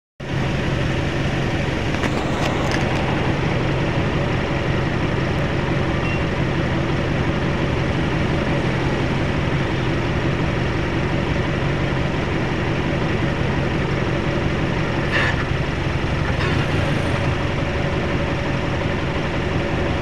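An old jeep's engine idling steadily.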